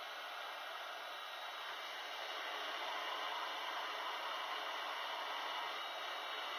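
Hot air rework station blowing a steady hiss of air, slightly louder from about two seconds in, as it heats the solder joints of a surface-mount capacitor on a graphics card's circuit board.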